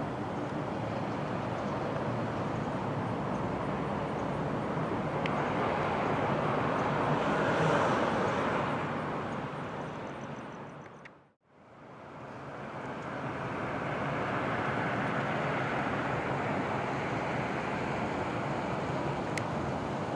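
Outdoor city background noise, a steady rush like street traffic. It swells about eight seconds in, fades out to silence midway, then fades back in.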